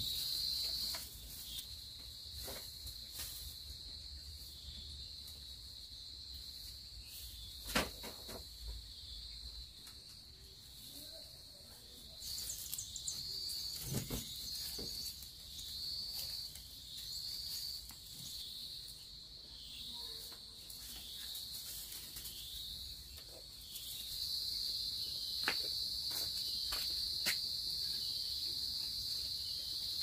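A high insect chorus, steady at first, pulsing about once a second through the middle and steady again near the end. Now and then a few light knocks and rustles come from dried garlic bulbs being handled in a woven bamboo basket.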